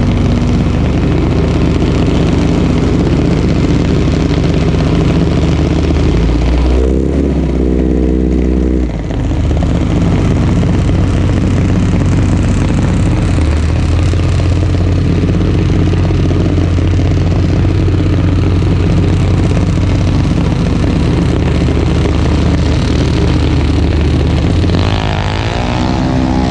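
Junior dragster's single-cylinder engine idling steadily, close to the camera. It changes pitch briefly about seven seconds in and starts rising in pitch near the end.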